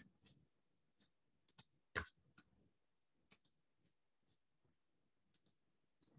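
Clicking at a computer: scattered short clicks, mostly in quick pairs, with one sharper knock about two seconds in, against near silence.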